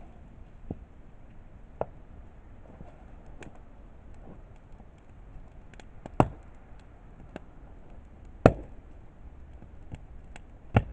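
Wood campfire crackling, with scattered sharp pops over a low hiss; the three loudest pops come in the second half.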